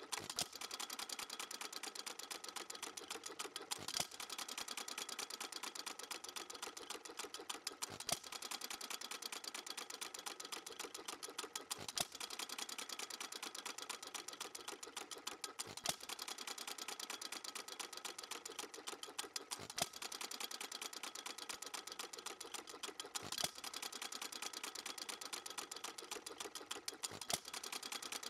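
Stuart Little Major antique hit-and-miss engine running: a fast, steady mechanical clatter as it coasts, with a louder sharp bang about every four seconds as it fires.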